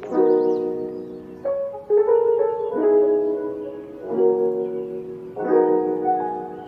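Background music: a mellow lo-fi instrumental led by piano-like keyboard chords, each struck and left to fade before the next, with a few single melody notes between them.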